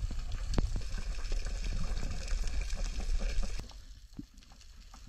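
Underwater ambience picked up by a submerged camera: dense crackling and clicking over a low rumble, dropping to a quieter crackle about three and a half seconds in.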